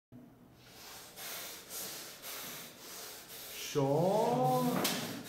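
Soft rustling, then about four seconds in a man's voice makes one drawn-out wordless sound lasting about a second, rising and then falling in pitch.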